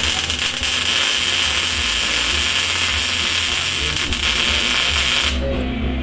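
Wire-feed welder arc crackling and hissing steadily through one weld bead for about five seconds, then stopping suddenly as the trigger is released.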